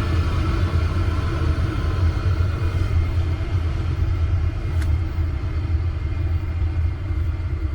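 Chinese diesel air heater running during its first startup: a steady low rumble of the burner and blower, with a brief click about five seconds in.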